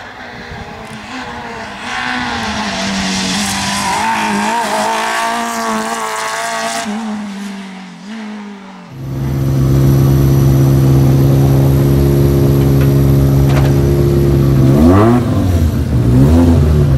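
Rally car engine under load on a tarmac stage, its pitch rising and dropping through gear changes as the car drives past and pulls away. About nine seconds in, the sound cuts to a louder rally car engine idling close by, revved twice near the end.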